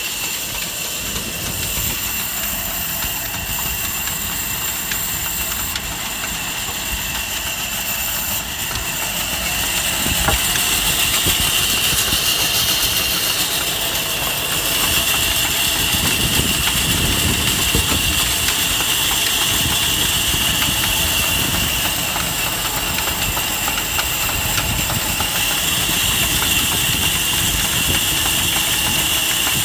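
A large wheeled sawmill band saw and the engine driving it run steadily, a mechanical drone with a thin high whine over it. It gets louder about ten seconds in.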